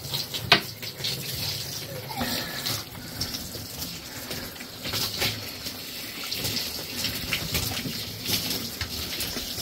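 Tap water running and splashing while a dog is washed in a bath, with a sharp knock about half a second in.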